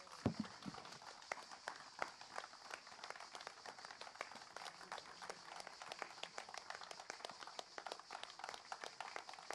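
Faint applause from an audience: many hands clapping irregularly.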